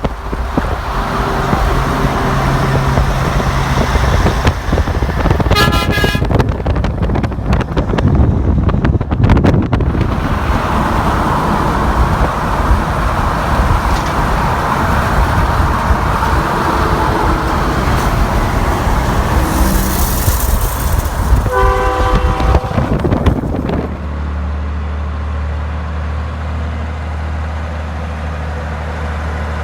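Heavy traffic passing close by with loud road and engine noise. A horn sounds briefly twice, about 6 seconds in and again about 22 seconds in. The road noise then drops to a steady low engine drone for the last few seconds.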